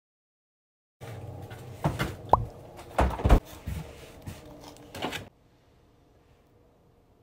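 Handling noises: a string of knocks and clatters starting about a second in, with a loud double thump near the middle and a short chirp, stopping after about four seconds.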